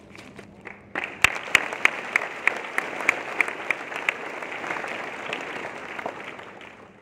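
Audience applause breaking out about a second in. A run of sharp, loud claps, about three a second, stands out over the rest for the first few seconds, and the applause dies down near the end.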